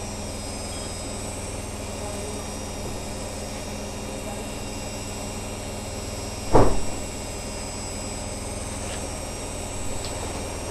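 Privileg Sensation 9415 washing machine running with a steady hum and several steady tones, and one loud thud about six and a half seconds in.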